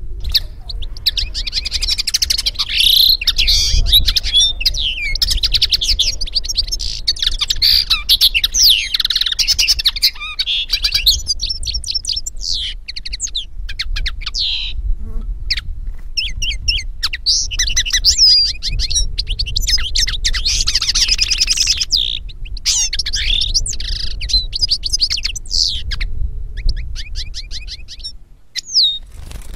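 Small finch singing: fast twittering and trilled phrases with short breaks, over a steady low hum.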